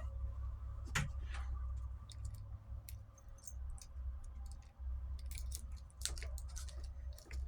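Metal keys clicking and scraping as a key is pushed into and worked in the keyhole of a gun lock, in scattered small clicks, the loudest about a second in and again around six seconds in. A steady low hum runs underneath.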